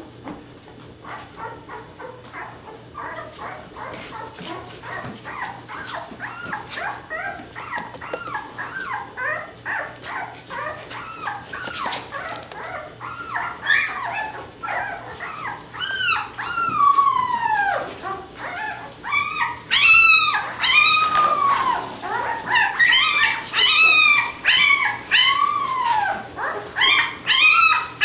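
Nine-day-old Labrador retriever puppies crying and squealing: many short, high cries that rise and fall in pitch and overlap, growing louder and more frequent, loudest over the last several seconds. These are the cries of newborn pups a little nervous in new surroundings.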